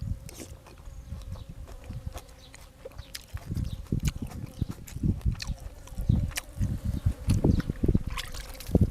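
Close-up mouth sounds of eating: chewing and smacking in an irregular run of soft low thuds and crisp clicks, busier in the second half, with a faint steady hum underneath.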